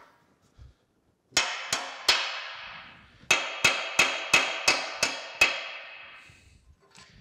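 Hammer blows on the rusty forge pan of an old blacksmith's forge: three strikes, a short pause, then seven more in a steady rhythm. Each blow rings out with a metallic ring.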